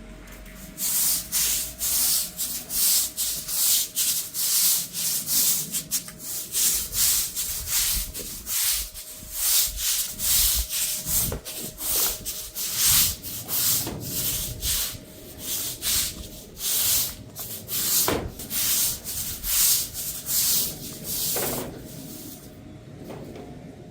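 Stiff brush scraping over paving in quick repeated strokes, about two a second, stopping near the end.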